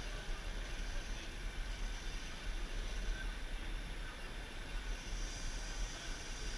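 Radio-controlled scale model trucks running: a steady noisy hum, with a faint high whine coming in about five seconds in.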